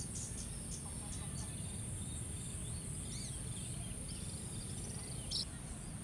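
Insects buzzing in a steady high drone, with a few short bird chirps and a low rumble underneath; a brief sharp sound comes about five seconds in.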